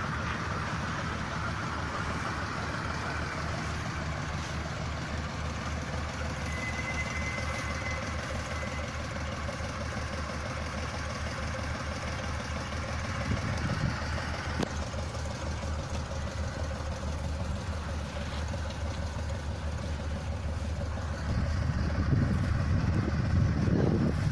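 Hino diesel engine on a rice machine running slowly and steadily, with an even, thudding firing beat. The low rumble gets louder a few seconds before the end.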